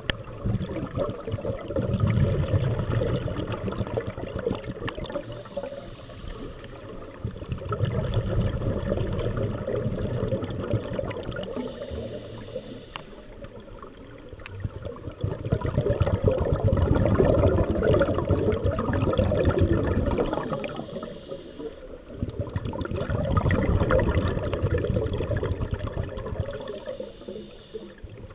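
Rushing water, rising and falling in slow surges several seconds apart.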